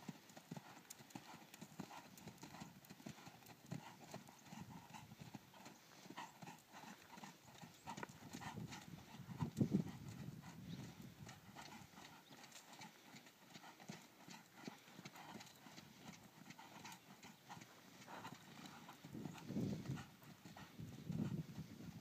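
Hoofbeats of a Dutch Warmblood gelding at trot and canter on arena sand, a soft irregular clip-clop. A few louder low rumbles come about ten seconds in and twice near the end.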